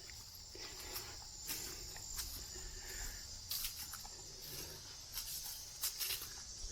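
Footsteps crunching irregularly on a woodland trail, under a steady high-pitched chorus of crickets.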